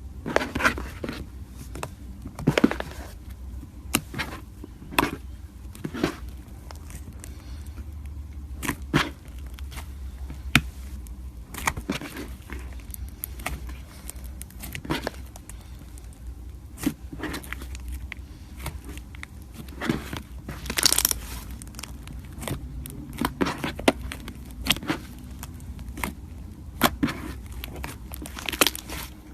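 Slime being pressed, stretched and poked by hand, giving irregular sharp pops and crackles, with a longer crackling stretch about two-thirds of the way through.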